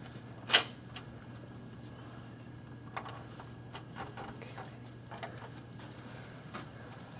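A door's metal lever handle and lock being worked by hand: one sharp click about half a second in, then scattered small clicks and rattles, over a steady low hum.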